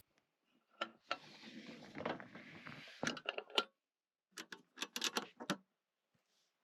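Clicks and light clattering of objects being handled, in two bursts: one from about one to three and a half seconds in, a shorter one from about four and a half to five and a half seconds in.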